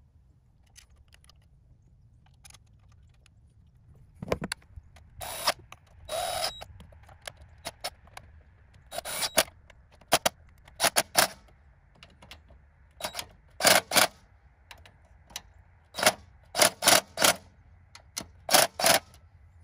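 Porter-Cable cordless driver run in short trigger bursts, about a dozen from a few seconds in, driving the plastic thermostat housing's bolts down.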